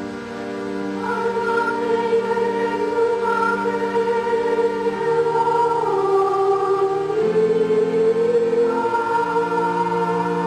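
Slow choral music: voices holding long chords that shift to new chords every few seconds.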